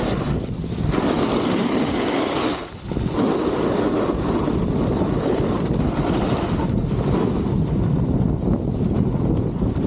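Steady rushing noise of a snowboard run: wind buffeting the 360 camera's microphone while the board slides and scrapes over groomed snow, dipping briefly a little under three seconds in.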